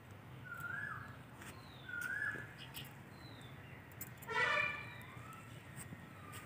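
A bird's short swooping call, repeated a few times about a second and a half apart, then a louder brief honk-like call about four seconds in, over faint scattered ticks.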